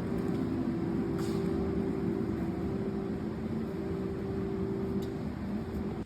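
A machine running with a steady hum, two held tones over a dense rumbling noise, that drops away abruptly right at the end.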